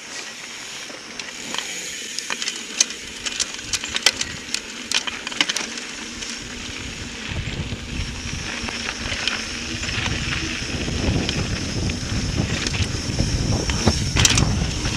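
Mountain bike rolling downhill on a dirt trail: tyres crunching over dirt and small stones, with sharp clicks and rattles from the bike. About halfway in, wind starts buffeting the microphone and grows louder as the bike picks up speed.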